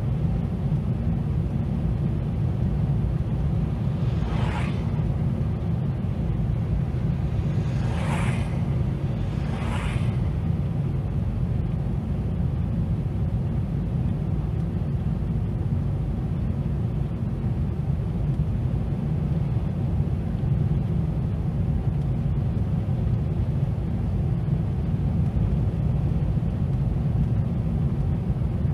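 Steady low road and engine rumble of a moving car, heard inside the cabin through a dashcam microphone. Three brief whooshes of passing vehicles come in the first ten seconds.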